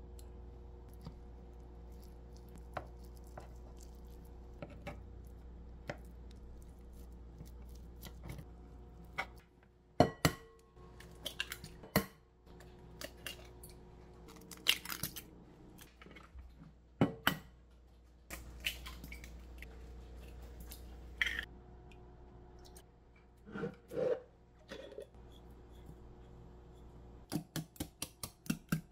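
Eggs cracked one after another on a glass mixing bowl: sharp taps every second or two, the loudest sounds here. Near the end a wire whisk starts beating the eggs in the glass bowl, about four clinks a second. Before that come faint scraping ticks of a spoon working pollock roe on a wooden board, under a faint steady hum.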